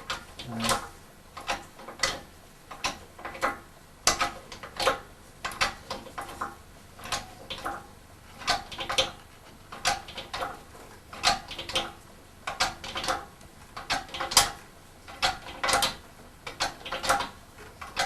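Irregular metallic clicks and knocks, about one or two a second, like tools or lifting gear being worked on metal.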